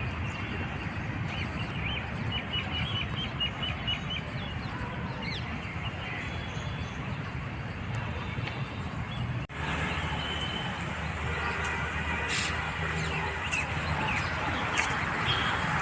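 Birds chirping over steady outdoor background noise, with a quick run of about a dozen short, high chirps a few seconds in. About two-thirds of the way through the background changes abruptly and grows a little louder, with more scattered chirps.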